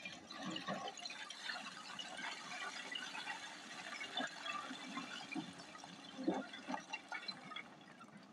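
Hyundai 210 excavator bucket digging into a pile of broken quarry rock. Stones scrape and clatter with a dense crackle, broken by a few heavier knocks.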